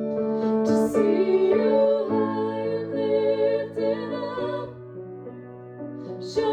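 A woman singing a slow hymn over instrumental accompaniment, with held notes and a softer passage near the end.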